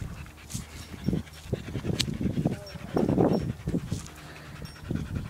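Dogs panting after play, in quick, irregular breaths, with a sharp click about two seconds in.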